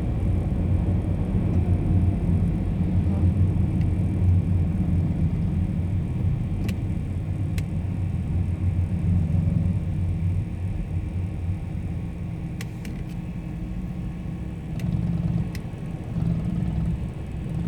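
Harley-Davidson motorcycle's V-twin engine running with a low rumble that slowly grows quieter, swelling briefly twice near the end.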